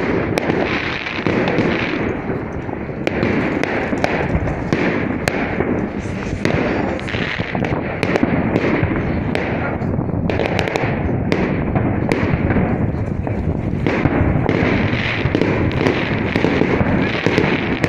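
Aerial fireworks display: shells bursting one after another, a dense run of sharp bangs and crackling with hardly a gap.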